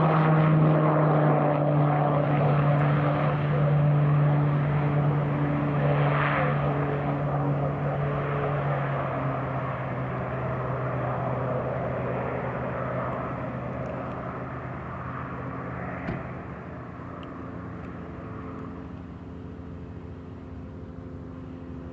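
Piaggio P.180 Avanti's twin pusher turboprops giving their unusual steady propeller drone, the pitch drifting slightly lower as the aircraft lands and rolls out down the runway, fading steadily away.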